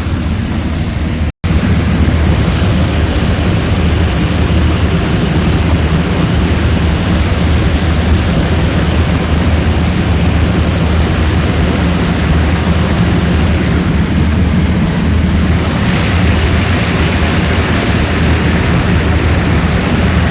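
Propeller aircraft's piston engine droning steadily under heavy wind rush, as heard on board in flight. There is a brief dropout about a second and a half in, and the rushing grows brighter near the end.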